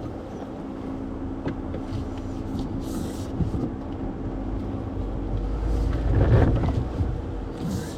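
Off-road Jeep's engine running steadily at crawling speed on a rocky trail, growing louder about six seconds in as it takes load, then easing off.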